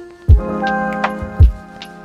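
Background music: held chords over a deep kick drum that hits twice, with light ticking percussion.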